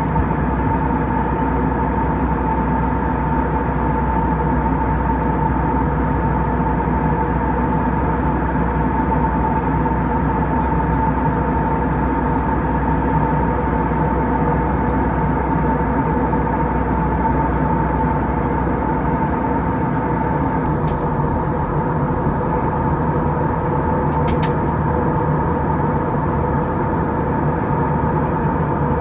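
Steady cabin noise inside an Airbus A319 airliner in flight: a constant rush of airflow and engine noise with a steady whine running through it. A brief click comes about five seconds before the end.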